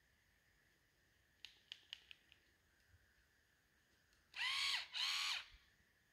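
Remington Touch Tech shaver's small electric motor switched on briefly twice. Each time it spins up in pitch, buzzes for about half a second and winds down, the two runs close together. A few light clicks come a couple of seconds before.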